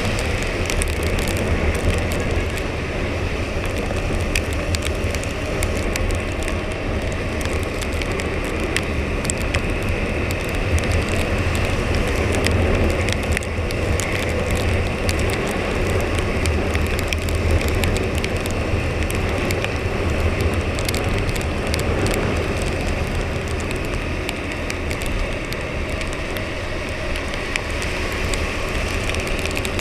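Husqvarna Svartpilen 401's single-cylinder engine running steadily on its stock exhaust while riding, mixed with the hiss of rain and a constant scatter of small ticks.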